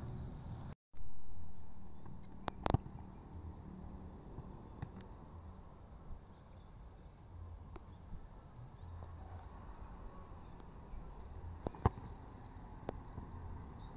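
Steady insect chirring over an open grass field, with a few sharp thuds of a football being kicked: a quick pair about two and a half seconds in and a loud single one near the end.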